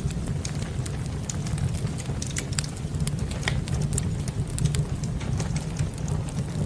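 Wood fire crackling in a fireplace: many small, sharp pops and crackles over a steady low rumble.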